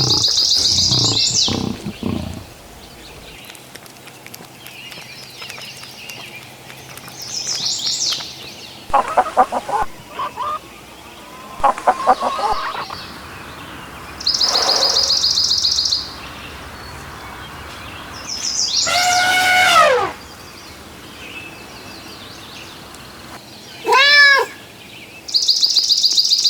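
A string of separate animal calls a few seconds apart, among them a longer pitched call that falls in pitch about 19 seconds in and shorter calls that rise and fall near the end.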